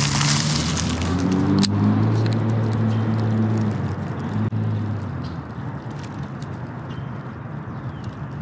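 Daiwa Tatula baitcasting reel cranked to retrieve line after a cast: a low steady whir, with a sharp click about two seconds in, fading quieter for the second half.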